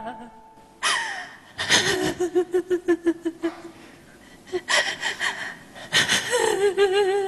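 Stylised stage weeping in Yue opera: an actress's voice makes several sharp gasping inhales, each followed by a wavering, pulsing sob.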